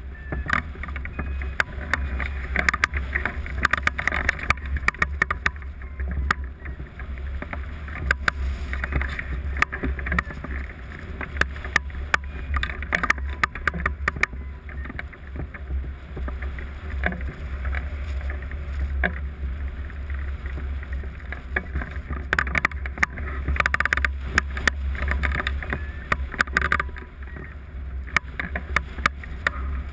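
Airflow buffeting the microphone of a camera mounted on a hang glider in flight: a steady low rumble with frequent irregular crackles and clicks.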